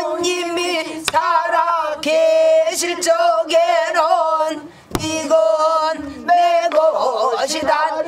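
Pansori singing: a voice holding long notes with a wide, wavering vibrato. A buk barrel drum gives a sharp stroke about a second in and again about five seconds in.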